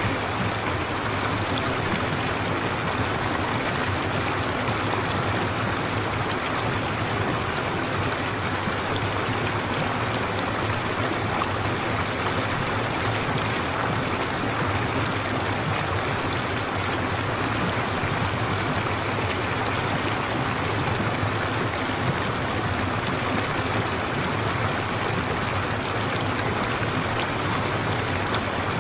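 Steady running-water noise, like a flowing stream, used as the masking nature-sound track of a subliminal affirmation recording. It holds even throughout, with no distinct drops or splashes.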